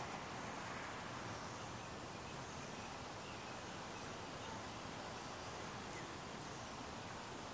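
Steady outdoor ambient hiss with a few faint, scattered bird chirps.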